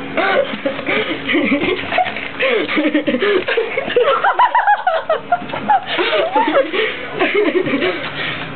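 Girls laughing and giggling with some chatter, the laughs climbing higher in pitch about four seconds in.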